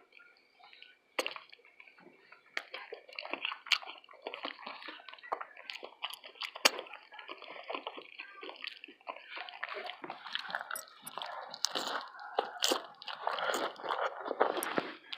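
Close-miked eating sounds: wet chewing and lip smacking with many sharp clicks as tacos are eaten, getting busier about two-thirds of the way through.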